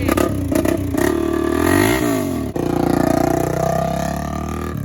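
Honda 400EX four-wheeler's single-cylinder four-stroke engine, bored out to 440, running and being revved, its pitch swinging up and down. It breaks off briefly about halfway, then climbs again as it accelerates.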